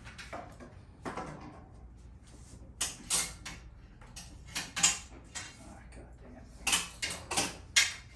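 Short knocks and clicks of a wooden drawing board being turned and lifted on a tabletop, in three small clusters.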